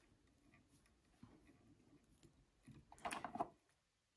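Near silence: room tone, with one brief, faint sound about three seconds in.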